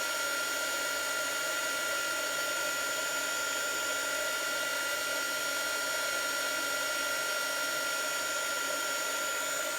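Craft heat gun running steadily: an even blowing rush with a fixed high whine from its fan motor.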